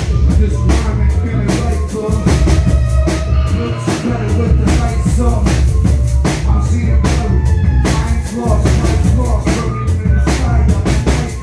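Live hip-hop and jazz band playing an instrumental passage with no vocals: drum kit hits in a steady groove over a heavy bass line, with sustained melodic notes on top.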